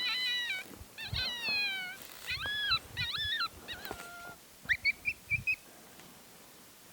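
Coyote howls and yelps: a run of wavering, falling calls, then about five short high yips in quick succession near the end.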